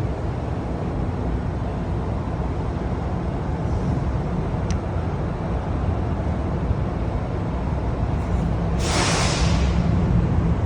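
Semi truck diesel engine idling with a steady low rumble, and a short burst of hiss about nine seconds in.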